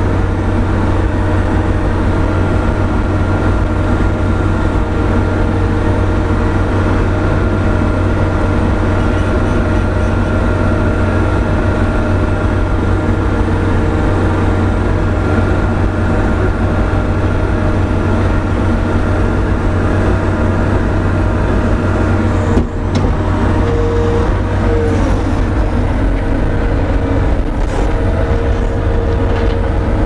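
New Holland C185 compact track loader's diesel engine running steadily under load while driving a converted three-point snowblower through its hydraulics, heard from inside the cab. There is a brief knock with a momentary dip about three-quarters of the way through.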